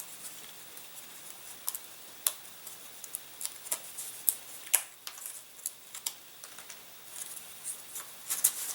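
Scattered small clicks and taps, irregular and a second or so apart, from balsa wood parts being handled and pressed into place on a model glider wing.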